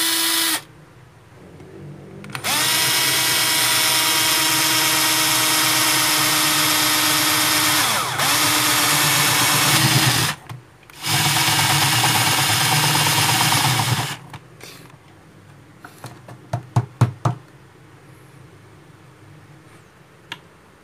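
Power drill with a spade bit boring into a wooden board: the motor whines at a steady pitch in three runs, a brief one, a long one that dips in pitch about two-thirds through as the bit loads, and a shorter one. A quick run of sharp knocks follows.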